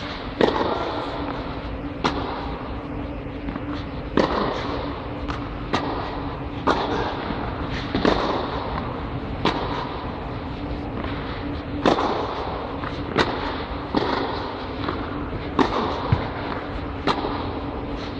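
Tennis ball struck by a racket and bouncing on a clay court during a rally: sharp pops about every one to two seconds, over a steady low hum.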